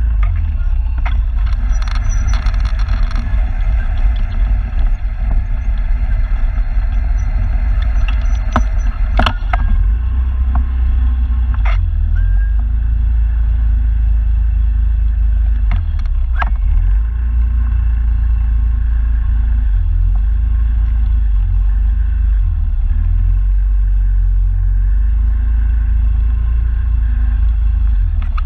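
Motor scooter riding slowly over a dirt track and onto a wooden plank bridge: a steady, deep engine and road rumble throughout, broken by a few short sharp knocks.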